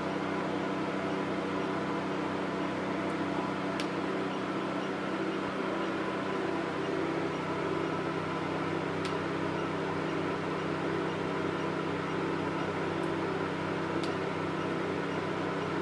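Steady hum of a diode laser hair removal machine's cooling system running during treatment, several steady tones over a fan-like rush, with a few faint ticks spaced several seconds apart.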